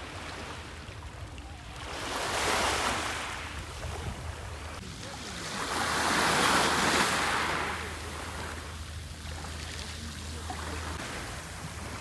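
Black Sea waves washing onto the shore: a steady rush with two swells as waves break, the second and louder one about six seconds in.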